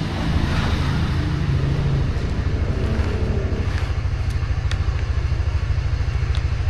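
Small sport motorcycle's engine idling with a quick, even pulse, heard through a microphone inside the helmet.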